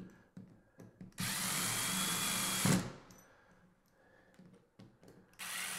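Cordless power driver spinning the screw of a 3/16-inch drywall toggle bolt in two short runs: one of about a second and a half starting just over a second in, and another starting near the end, with a slight rise in pitch in the first run.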